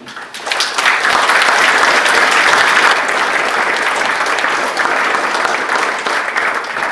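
Audience applauding, building to full strength about a second in and thinning out near the end.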